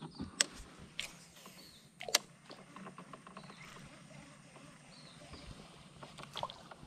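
A few sharp knocks and clicks from a fishing rod and baitcasting reel being handled in a wooden canoe, the loudest about two seconds in and a quick cluster near the end, over a faint quiet background.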